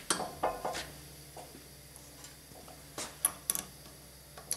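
Metal hand tools clinking and tapping against a hollow chisel morticer as the chisel is set and tightened: a few clinks near the start and a quick cluster about three seconds in.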